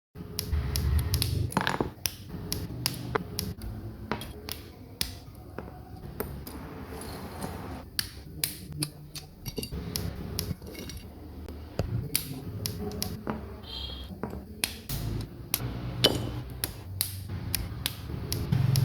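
Plastic model kit parts being cut from their runners and snapped together by hand: a run of sharp, irregular plastic clicks and snaps.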